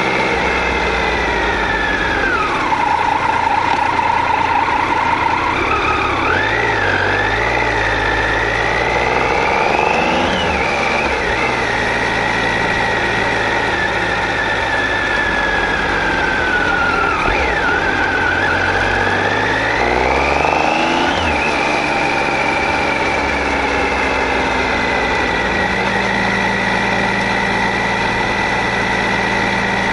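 Triumph Tiger 800XC's inline three-cylinder engine under way, over rushing wind. The revs fall at first, climb and drop sharply at a gear change about a third of the way in, ease down, then climb to another shift about two-thirds through and hold steady.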